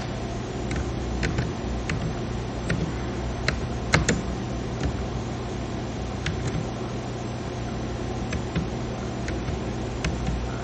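Computer keyboard keys clicking one at a time, slow and irregular, about a dozen keystrokes with the sharpest about four seconds in, over a steady low hum.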